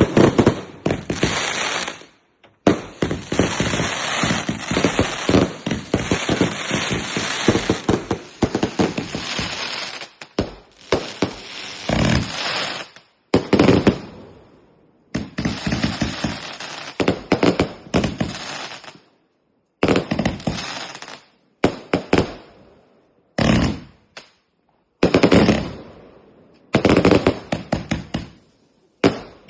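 Fireworks going off in rapid volleys of sharp cracks and bangs, in clusters that last a few seconds each with brief pauses between them.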